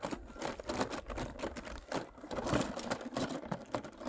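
Hair clips and their plastic packaging being handled: rapid, irregular clicking and crinkling as the clips knock together and the wrapping is moved.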